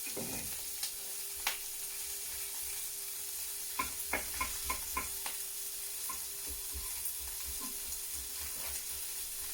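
Bacon pieces and leek sizzling in sesame oil in a hot pan, with a quick run of about six knife strokes on a chopping board a few seconds in as a carrot is diced, and a few lighter cuts later.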